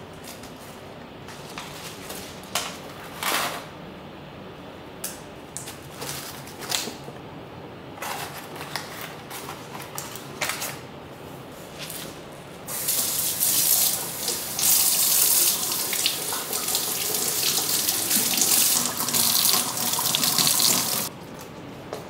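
Cloth and mesh produce bags rustling and being handled for the first half. Then a kitchen tap runs in a steady stream for about eight seconds, cutting off shortly before the end.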